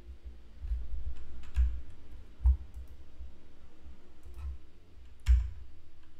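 Computer mouse and keyboard clicks picked up by a desk microphone: a handful of sharp clicks, each with a dull thump, the loudest about two and a half and five seconds in.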